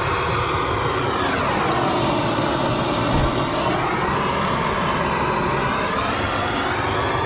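Gas soldering torch flame burning steadily while it heats a copper pipe joint before the solder is fed in. The rush of the flame shifts in tone, sweeping down and back up between about one and four seconds in.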